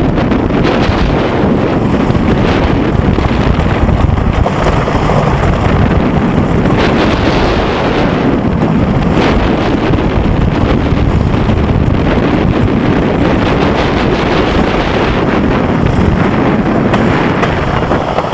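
Heavy wind rushing over the microphone during a roller coaster ride, with the coaster train rumbling on its track. The noise stays loud throughout and cuts off suddenly near the end.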